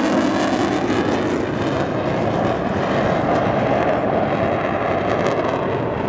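A military fighter jet's engine making a loud, steady roar as the jet flies aerobatic manoeuvres.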